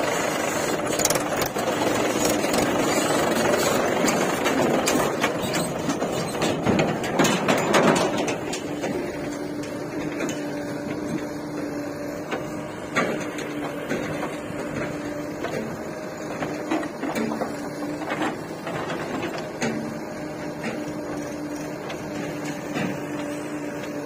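Heavy diesel engine running with a steady hum, louder and busier for the first eight seconds, with scattered knocks.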